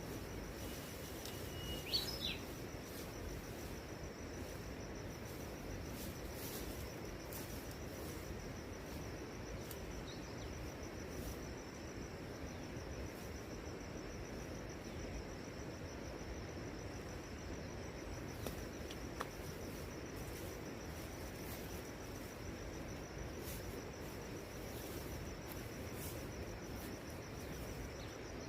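Forest ambience: insects trilling steadily on one high note over a soft even hiss, with a short bird chirp about two seconds in and a few faint taps.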